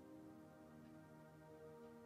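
Quiet, calm background music of slow, held notes that change about once a second.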